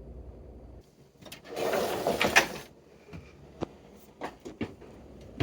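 A dishwasher rack slides along its rails for about a second, with a rattle, followed by a few light clicks and knocks.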